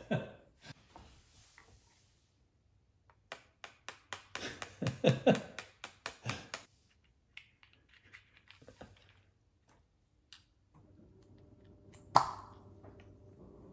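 Hands handling a plastic Easter egg and a small plastic cup on a stone countertop, with a scatter of clicks and taps. Near the end comes one sharp plastic snap with a brief ring, the loudest sound.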